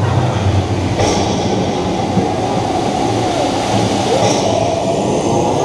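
Vliegende Hollander water coaster boat rumbling and clattering steadily along its track through the dark section, a constant loud vehicle rumble with a few faint creaking glides.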